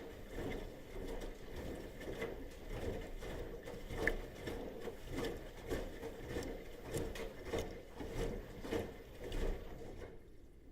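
Bosch washing machine in its wash cycle, the drum turning with a regular surge and small clicks and knocks about three times every two seconds. It dies away shortly before the end.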